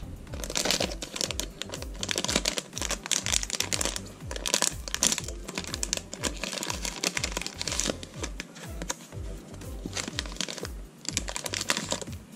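Shiny foil blind-bag wrapper crinkling and rustling as it is opened and handled, with background music keeping a steady bass beat underneath.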